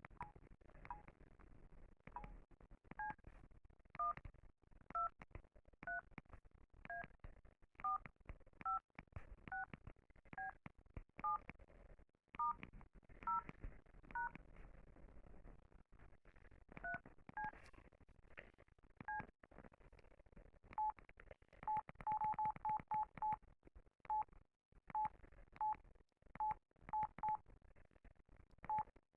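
Sony Ericsson J120i mobile phone keypad sounding two-tone touch-tone beeps as keys are pressed one at a time, about one a second. Later it gives single short beeps at one pitch, with a quick run of them about 22 seconds in, among faint key clicks.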